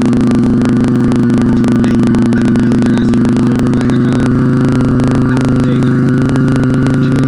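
A person humming one long, steady low note close to the microphone, with a crackling, buzzy edge.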